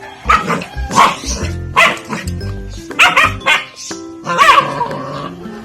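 Puppy barking in short, sharp barks roughly once a second, eager to play, then a longer call that bends in pitch about four and a half seconds in; background music plays underneath.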